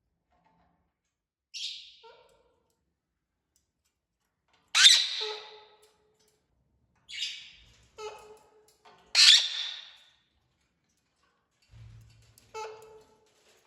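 Parrot squawking: six short, separate calls with silence between them, the loudest about five and nine seconds in. A soft low thump comes shortly before the last call.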